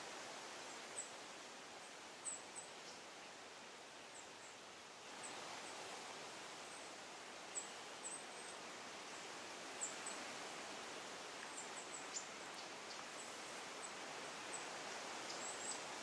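Forest ambience: a steady rustling hiss, a little louder from about five seconds in, with short, high-pitched chirps of a small bird at irregular intervals.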